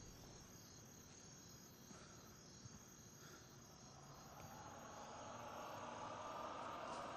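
Faint outdoor night ambience: crickets chirping steadily, under a hiss that grows louder over the last few seconds.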